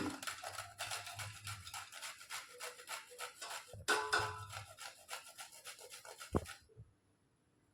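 Nuts being grated on a hand grater: quick rasping strokes, several a second, with a short break about halfway and a single low knock shortly before they stop near the end.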